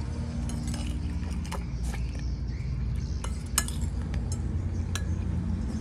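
A metal spoon and the cat's feeding clinking against a ceramic plate: about six sharp separate clinks, the loudest about three and a half seconds in, over a steady low hum.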